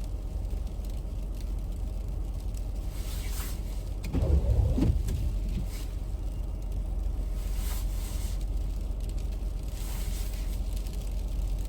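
Steady low rumble of an idling vehicle engine, with a brief louder rumble about four seconds in.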